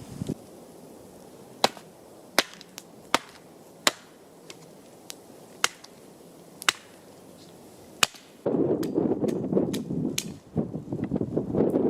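Wood fire crackling, with single sharp pops spaced about a second apart, irregularly. About eight and a half seconds in it cuts to a louder, continuous rough crunching and rustling.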